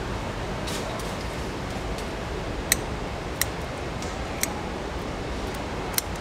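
Kitchen shears snipping through a mantis shrimp's shell: a few sharp clicks spaced about a second apart, over steady background noise.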